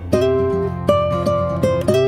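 Background music: a plucked guitar playing a melody of single notes over a low bass line.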